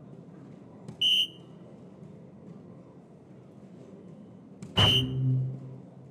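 Two soft-tip darts striking an electronic dartboard about four seconds apart, each hit answered by the board's short high beep as it registers a single 17. The second hit is louder and is followed by a lower electronic tone for about a second.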